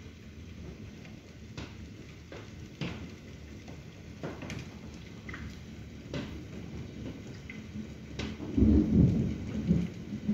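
Steady rain with individual drops tapping now and then. A low rumble of thunder rolls in near the end and is the loudest sound.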